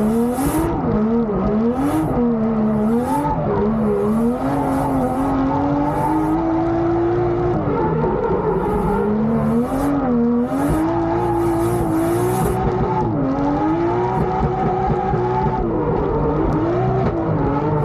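Car engine heard from inside the cabin on track, its revs rising and falling again and again as the car is driven hard. It runs cleanly with no misfire, after oil was cleaned out of the spark plug wells and coil packs. Short spells of high hiss come and go over it.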